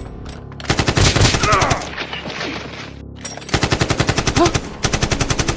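Two bursts of rapid automatic gunfire, about ten shots a second: a short burst about a second in, then a longer one from past the middle to the end.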